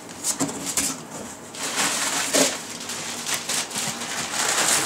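Packaging being handled and opened: rustling and crinkling with a few sharp clicks and knocks, busier and louder from about a second and a half in.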